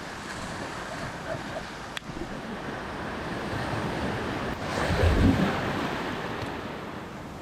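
Sea waves washing in, swelling to a louder surge about five seconds in, with wind on the microphone.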